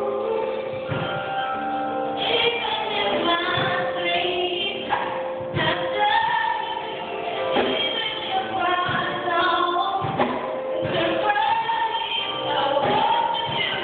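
A woman singing a solo into a microphone over a sustained instrumental accompaniment.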